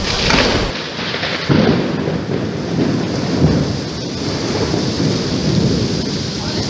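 Heavy rain falling steadily, with low thunder rumbling in several swells underneath.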